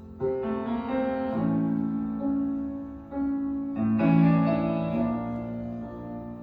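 Piano music: slow chords struck about once a second, swelling louder about four seconds in.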